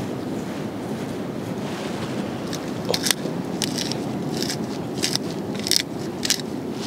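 Fresh herbs crackling and rustling in short bursts as they are pushed by hand into a gutted fish's cavity, starting a few seconds in, over a steady rush of wind and surf.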